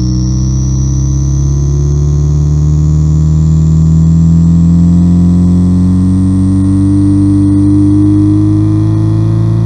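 Homemade electronic engine-sound generator imitating the equal-length exhaust note of a Subaru EJ20 flat-four. The buzzing engine-like tone rises slowly in pitch throughout, like revs climbing gently.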